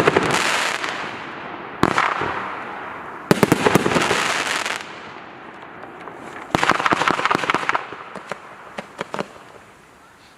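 Consumer firework barrage cake firing volleys of loud bangs in four clusters, each followed by crackling. A few scattered single pops follow, then it dies away near the end.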